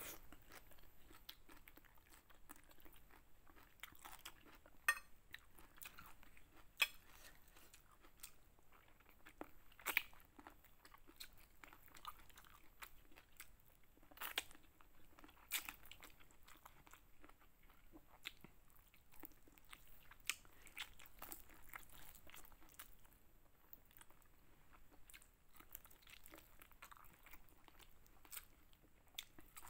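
Quiet, close-up eating sounds: a person chewing and smacking on spicy chicken noodles, with scattered short sharp mouth clicks and smacks. About halfway through, a piece of chicken is bitten into.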